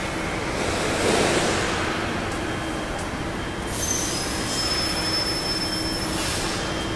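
Steady machinery noise in a factory hall, with a louder swell about a second in and a thin, high whistle from about four to six seconds in.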